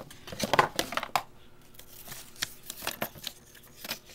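Camcorder box contents being handled: a run of light clicks, taps and rustles of plastic and packaging, busiest in the first second or so, then scattered.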